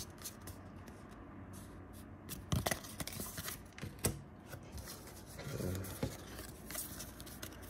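Trading cards being handled on a wooden table: a few sharp clicks and light scrapes as cards are set down, gathered and squared into a stack.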